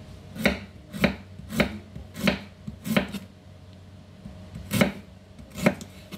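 Kitchen knife chopping through a firm vegetable onto a cutting board: seven sharp knocks, five at an even pace of about one every half second or so, then a pause and two more.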